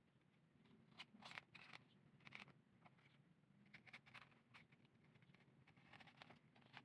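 Faint rustling and crinkling of artificial flowers and their wrapping as they are handled, with a few short scrapes about a second in and again near the end, over a low steady hum.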